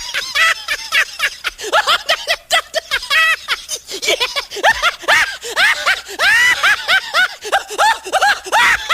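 High-pitched, sped-up cartoon-style voice giggling and chattering in quick rising-and-falling chirps, several a second.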